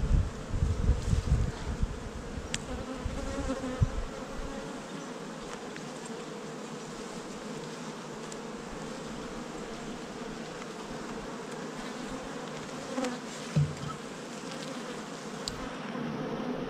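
Honeybees buzzing in a steady hum around an opened hive. A few low bumps of frames being handled in the first few seconds, and one more about two-thirds of the way through.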